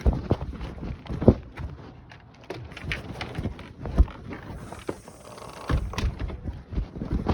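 Muffled, irregular knocks and rubbing from a phone riding in a pocket on a moving e-bike, with sharper thumps about a second in and about four seconds in. No steady motor whine stands out above the handling noise.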